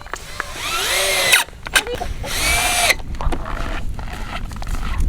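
A power drill runs twice, driving screws while the door hinges are fastened. Each run rises in pitch as it spins up: the first lasts about a second, and the second is shorter, starting a little after the middle.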